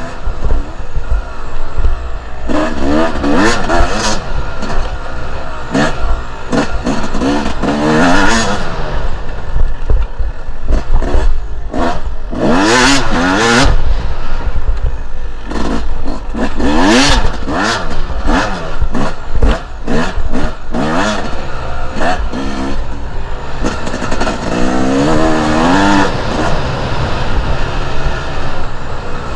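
Two-stroke enduro motorcycle engine revving up and falling off again and again as it is ridden off-road, about half a dozen strong surges. Under it runs a steady low rumble, with clattering and knocks from the rough ground.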